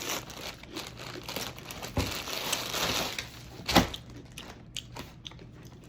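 Packaging crinkling and rustling as it is handled and opened, busiest in the middle, with a sharp knock or two.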